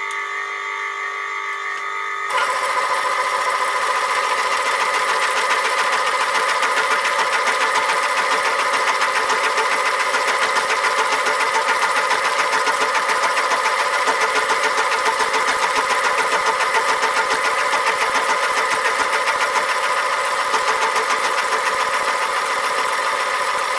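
Small metal shaper running, its ram stroking back and forth as the tool cuts rack teeth into a metal bar, a steady mechanical clatter. It gets louder and fuller about two seconds in.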